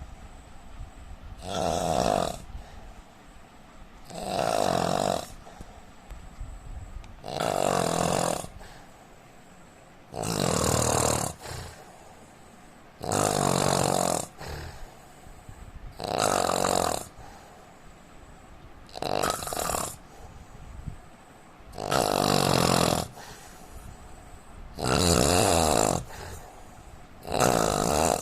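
A man snoring in a steady rhythm, one snore about every three seconds, each lasting about a second.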